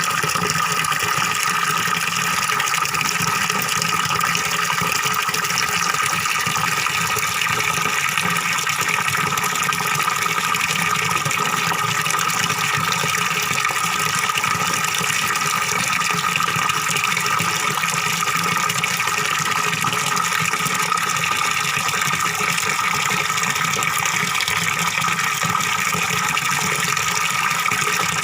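Small waterfall pouring into a pond, with steady, unbroken splashing and gurgling of falling water.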